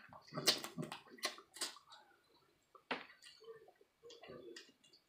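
Wet eating sounds of seafood close to the microphone: lip smacks, sucking and chewing, in a string of short irregular clicks.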